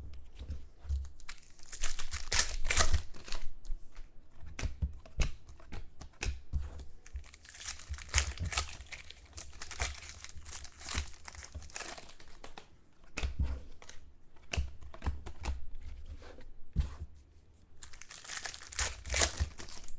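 Wrappers of 2013 Topps Chrome football card packs being torn open and crinkled by hand: irregular crackling and rustling, busiest about two seconds in and near the end.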